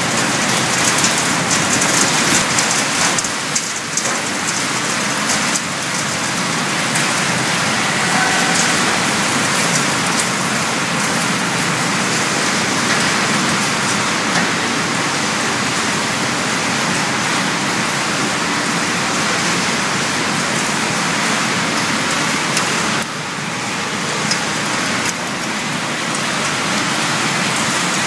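Refrigerator recycling plant machinery running: a loud, steady hiss with many small rattles, dipping slightly about 23 seconds in.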